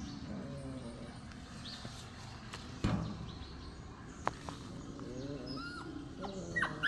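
Short high squeaks and chirps from an animal, coming several times, with a couple of sharp knocks in the middle.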